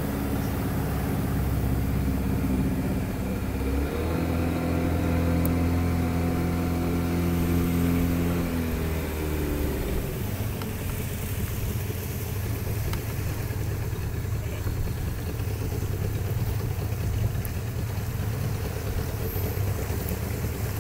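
A boat's outboard motor running under way. Its pitch rises about four seconds in and comes back down around ten seconds in, and after that it runs lower and steady.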